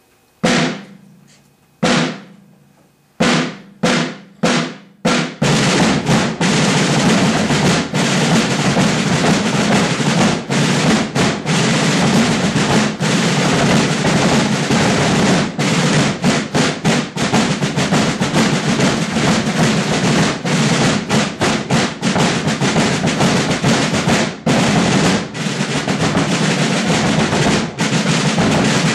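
Drum line of rope-tension rudimental snare drums with a large bass drum. A handful of separate strokes in the first five seconds, then the full line plays a dense rudimental cadence full of rolls.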